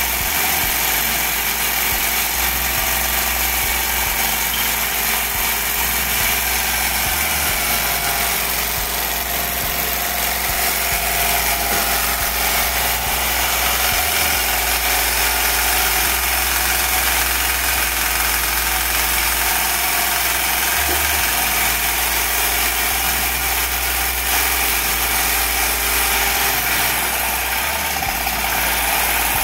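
Homemade tin-can Stirling engine running steadily at high speed, its flywheel and piston whirring with a slight vibration.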